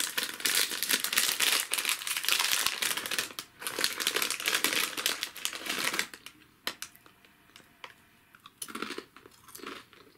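Crinkly plastic snack bag of crackers being torn open and handled, a dense crackling for about six seconds, then a few short crunches near the end as a rice-and-pea cracker is chewed.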